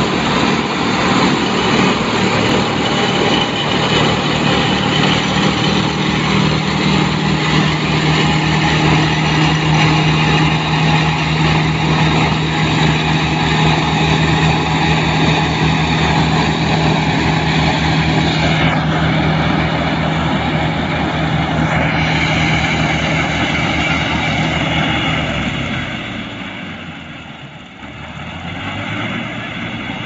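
Tractor engine running steadily while pulling a combined straw mower and round baler, which adds its own machinery drone. The sound fades to a brief dip about three seconds before the end, then steadies at a quieter level.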